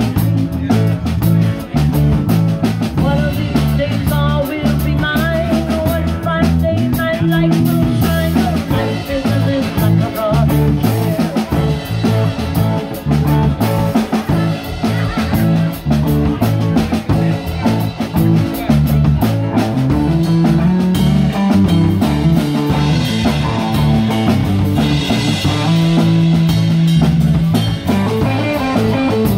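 Live band playing an instrumental passage on electric guitars and drum kit, with a harmonica played into a microphone over it.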